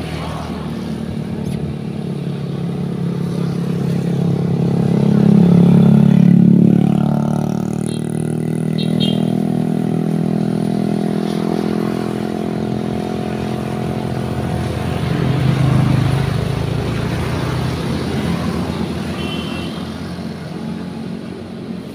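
Motorbikes and cars passing on the road, their engines swelling loudest about six seconds in and again around sixteen seconds, then easing off.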